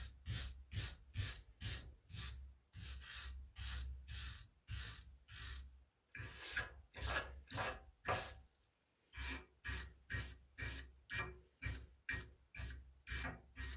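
Hand-held wire brush scrubbed back and forth over a rusty steel hatchet head held in a vise, scraping off the rust. It goes in quick repeated strokes, about two to three a second.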